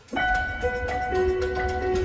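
A piano playing a short melody of sustained single notes over a low bass.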